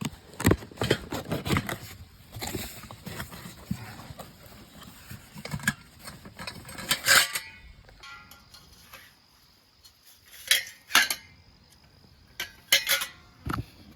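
Irregular knocks, clicks and clatter of hard objects being handled, loudest about seven seconds in and in a cluster near the end.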